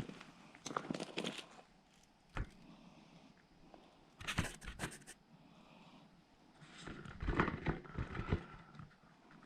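Bouts of close handling noise: rustling, scraping and sharp knocks, in several separate bursts with quieter gaps between.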